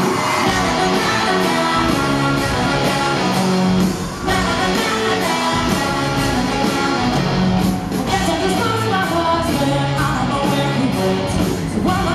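Live rock band with electric guitar and drums playing a song with a steady beat, with singing over it. The music drops out briefly about every four seconds.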